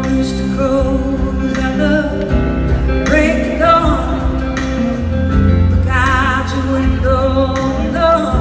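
Live band playing a slow song with singing and electric guitar; the sung notes waver in a vibrato about three and six seconds in.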